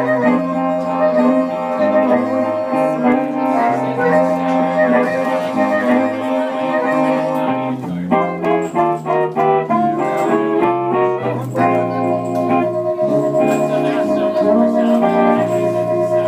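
Live blues band: harmonica playing long held notes over hollow-body electric guitar and a stepping electric bass line. About halfway through the harmonica breaks into a run of quick short notes, then settles back onto a long held note.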